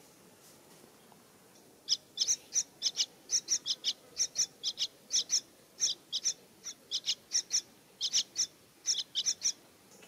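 Parakeet calling: a rapid series of short, high, sharp calls in small groups, about three or four a second, starting about two seconds in.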